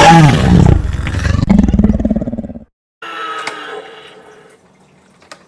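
Loud, rough dinosaur roar and growl sound effect that cuts off suddenly after about two and a half seconds. After a brief gap, a fainter electronic sound effect from the dinosaur toy fades away, followed by soft clicks near the end.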